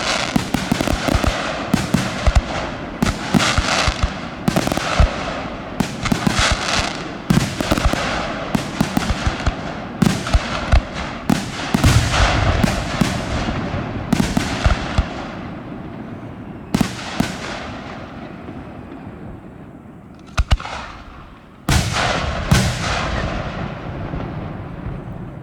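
Fireworks display: rapid, densely packed bangs of bursting shells that thin out and grow quieter over the second half, with a last few loud bangs near the end.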